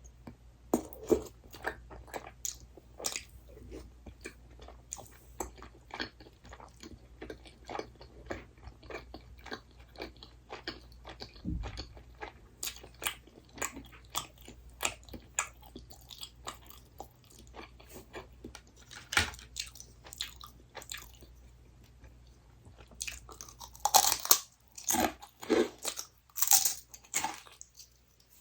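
A person chewing and biting crunchy snack food, with a steady run of small crunches and a burst of louder crunching bites about 24 seconds in.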